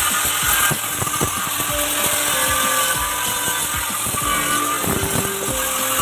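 Loud, steady machine noise, such as a power tool running, over quiet background music.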